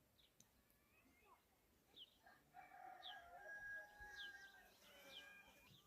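Faint bird calls: short falling chirps about once a second, and from about halfway a longer drawn-out call that ends near the close.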